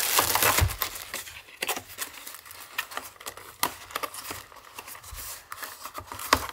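Clear plastic packaging crinkling as it is handled, densest in the first second. After that come scattered rustles and light clicks and taps of a cardboard box being moved about.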